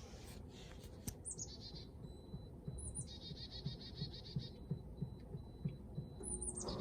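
A small songbird singing faintly, repeating a phrase of a high falling whistle followed by a rapid trill about every three seconds. Soft low thumps come about three times a second underneath.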